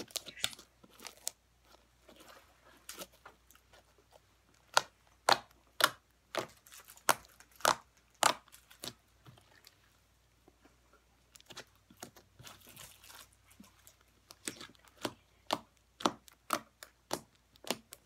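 Foam bead slime being squished and worked, giving a string of short, sharp clicking pops. They come irregularly at first and faster and more evenly, about two or three a second, in the last few seconds.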